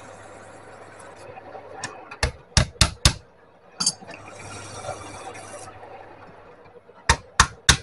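Hand work on leaf-spring steel: two stretches of scraping strokes, and sharp hammer blows on the steel, four in quick succession a little over two seconds in, one more a moment later, and three near the end.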